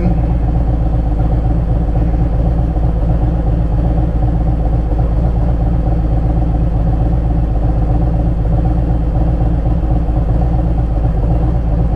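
Harley-Davidson Road Glide's V-twin engine idling steadily.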